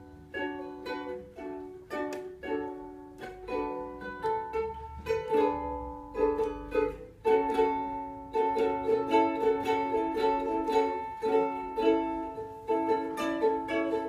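Solo ukulele playing an instrumental passage: plucked chords in a steady rhythm, getting louder about halfway through.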